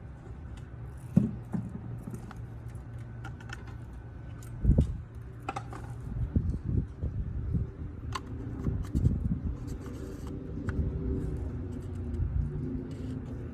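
Scattered clinks, clicks and a couple of thumps from things being handled, over a steady low hum.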